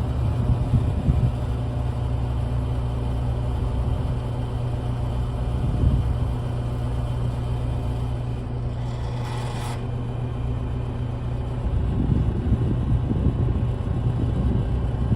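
Vintage Lasco Fanmaster 20-inch box fan running: its motor hums steadily under the rush of moving air, with a really faint grinding coming from the motor.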